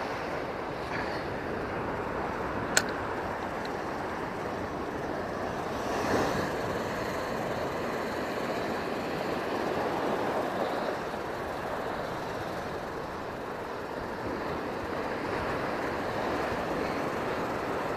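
Sea surf washing and breaking against shore rocks, a steady rushing noise that swells about six seconds in and again around ten seconds. A single sharp click about three seconds in.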